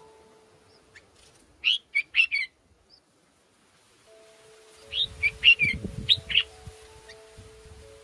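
Red-whiskered bulbuls chirping at the nest during a feeding: a quick run of four short high chirps a little before two seconds in, and a second run of chirps around five to six and a half seconds. Soft background music with slow held notes runs underneath, and a low rumble comes in with the second run.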